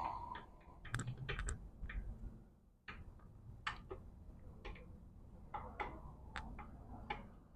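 Light, irregular clicks and taps of hand tools and metal transmission parts being handled, about a dozen scattered strikes over several seconds.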